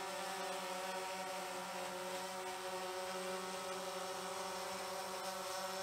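DJI Phantom 3 Professional quadcopter hovering low, its four spinning propellers giving a steady, even-pitched buzz. The drone sits close to the ground, unsteady in its own prop wash.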